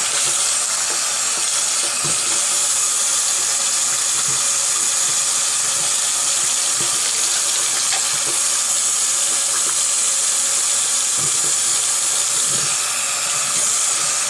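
Bathroom sink tap running steadily into the basin. A few faint knocks come from the plastic motor housing of a hang-on-back aquarium filter being scrubbed with a bottle brush under the stream.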